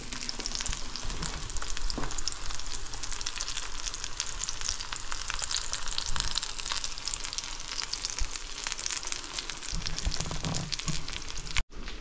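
Fish fingers shallow-frying in a little oil in a frying pan: a steady, crackling sizzle made of many fine pops. It breaks off for an instant near the end.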